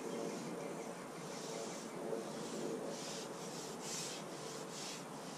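Soft, irregular rubbing noises, about half a dozen in a few seconds, over a faint steady background.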